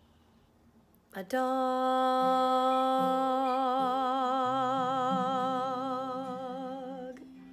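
A woman's voice holds one long note with vibrato, closing out a song. It starts about a second in and fades away near the end, over lower backing notes that change beneath it.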